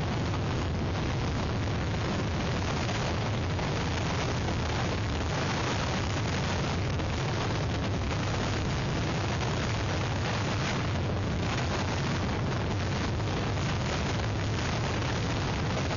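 Hurricane wind blowing hard across an outdoor microphone: a dense, steady rushing noise with a heavy low rumble, swelling slightly in gusts.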